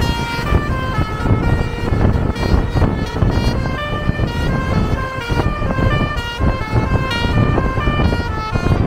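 A coach's basuri horn, a multi-tone electric melody horn, playing a quick tune of stepped notes over a steady low rumble.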